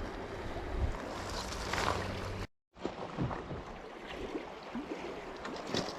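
Water splashing and rushing around a kayak on a fast-flowing, flood-high creek, with wind on the microphone. The sound cuts out completely for a moment about two and a half seconds in.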